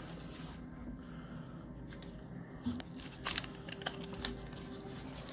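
A small cardboard box being opened by hand, with a few light clicks and taps from the packaging in the second half.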